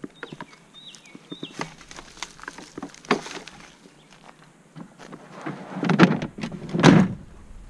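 Footsteps and handling noises in dry grass and leaf litter, with small clicks and knocks, then two loud scuffing thumps about a second apart near the end.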